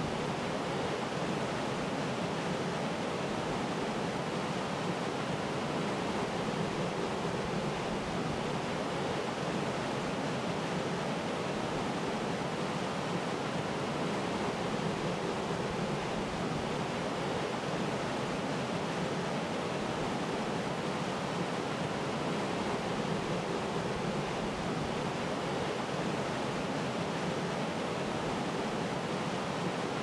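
Small waterfall: water falling and splashing in a steady, even rush with no breaks or changes.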